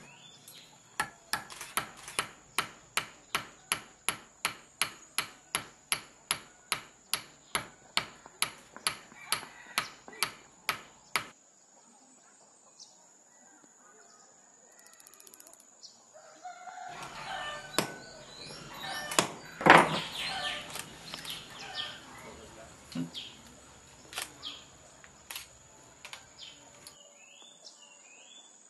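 Jeweler's hammer striking a ring held in pliers on a small steel anvil block: a steady run of sharp metal taps, about three a second, lasting some ten seconds. After a quieter stretch comes a cluster of bench-work sounds and a rooster crowing about two-thirds of the way through.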